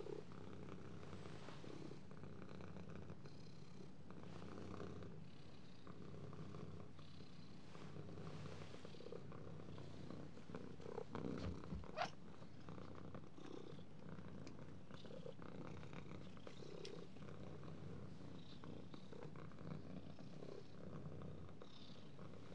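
Domestic cat purring steadily, with one short sharp sound near the middle.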